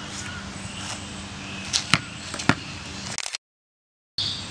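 Small rubber basketball bouncing on a concrete driveway: a few sharp bounces about two seconds in, then the sound cuts out completely for most of a second near the end.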